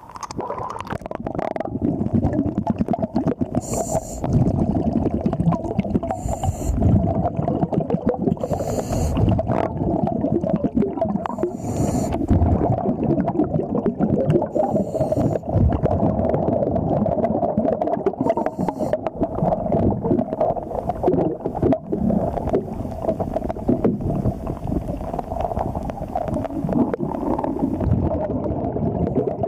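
Underwater noise heard through a diver's camera housing: a dense, steady rumbling and bubbling, with short hisses every few seconds through the first two-thirds that fit a diver's scuba regulator breathing.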